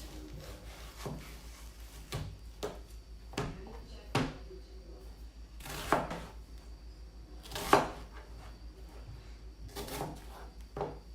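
Knife cutting an onion on a cutting board: slow, irregular knocks of the blade against the board, about nine in all, one much louder than the rest about two-thirds through.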